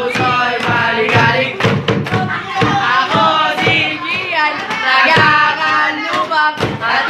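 Voices singing a song, with sharp claps or hits now and then.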